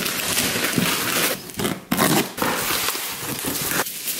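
Cardboard box being pulled open by hand: flaps scraping and packing material rustling and crackling, with a few brief pauses.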